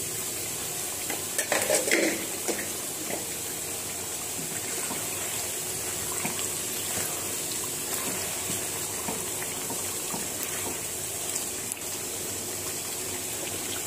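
Meat curry simmering in a wide pan on a gas stove: a steady bubbling, sizzling hiss, with a brief louder burst of noise about two seconds in.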